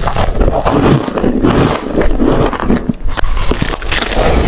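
Freezer frost being bitten and chewed: a dense run of crisp crunches and crackles.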